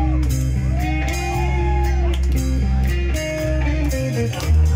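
Live rock band playing loudly: electric guitars and bass guitar over a drum kit, with a heavy low accent hitting near the end.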